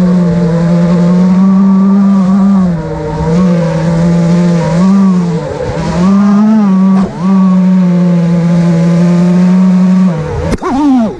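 FPV quadcopter's brushless motors and propellers whining in flight, a steady tone that dips and climbs with the throttle several times. There is a sharp drop and climb in pitch near the end.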